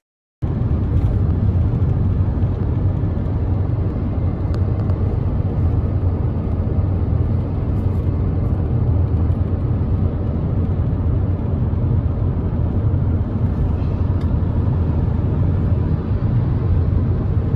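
Steady low rumble of road and engine noise heard inside a car's cabin while it drives at motorway speed.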